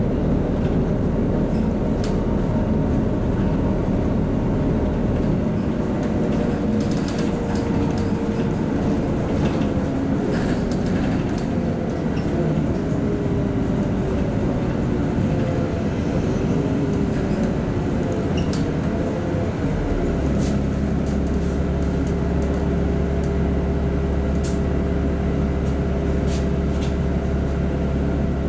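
LiAZ-5292.65 city bus heard from inside: engine and drivetrain running, with scattered rattles. The pitch wavers and slides as the bus slows, and about two-thirds of the way in it settles into a steady deep hum, as if idling at a stop.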